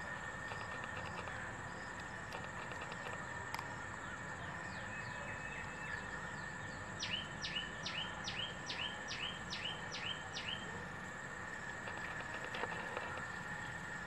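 Outdoor ambience of steadily buzzing insects, with a bird calling: a run of about ten sharp, down-sweeping notes, about three a second, starting about seven seconds in.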